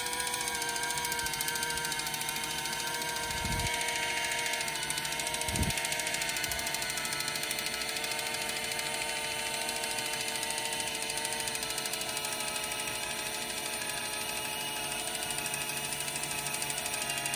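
Kitchen Mama battery-powered electric can opener (four AA batteries) running as it works its way around the rim of a can, its small motor and gears giving a steady whine while the blade cuts. Two soft low bumps come a few seconds in.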